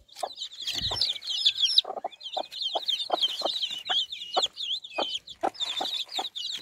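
A brood of chicks peeping constantly in high, overlapping chirps, while the mother hen clucks low and short, about three clucks a second from about two seconds in.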